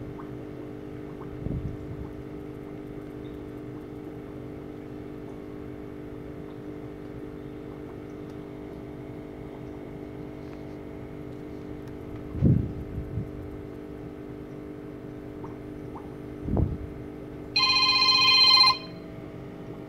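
Steady low hum with a few knocks, then near the end a Samsung phone's ringtone for an incoming call: a bright chime lasting about a second, the loudest sound here.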